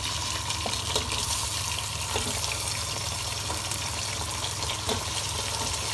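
Wet raw chicken pieces hitting hot oil and browned onions in a steel pot, sizzling with a steady hiss. A few light knocks come from a slotted steel ladle against the pot.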